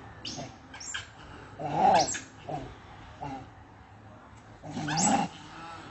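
Harsh animal calls: a loud one about two seconds in and another about five seconds in, with shorter, quieter calls between.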